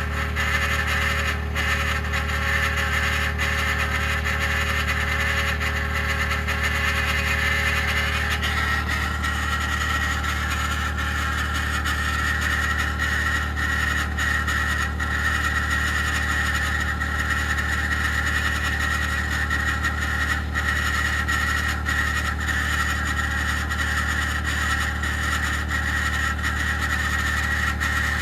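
2021 Ford F-150 PowerBoost running on a cold start, with a steady loud grinding, whirring noise that the owner likens to a fan hitting its housing. About eight seconds in, the whine shifts higher and grows stronger. It is a cold-weather fault that appears only at about minus 11 °C and colder, quiets once the truck warms up, and the dealership has not diagnosed it.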